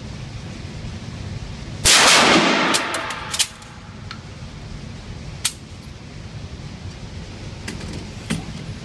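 A single Mossberg 500 pump-action shotgun blast about two seconds in, echoing for over a second in an indoor range, with a few sharp clicks during the echo and a couple more later.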